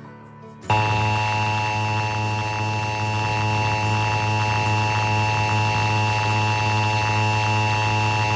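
Emergency Alert System attention signal, the 853 Hz and 960 Hz two-tone alert, starting about a second in and holding steady. It is heavily distorted, with a strong low buzz under the tones.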